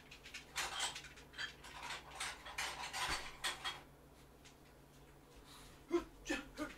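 Takeout containers and packaging being handled and rummaged through: a run of light clicks, crinkles and rattles for about three seconds, a pause, then two or three knocks near the end as things are set down.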